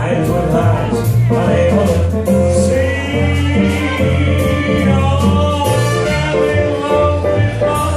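Live band playing upbeat dance music, with a prominent bass line, melody lines and regular percussion hits, loud and steady in the room.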